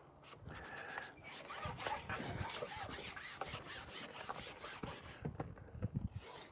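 Rubbing and scraping as a long match-fishing pole is slid and handled, with a brief high rising squeak near the end.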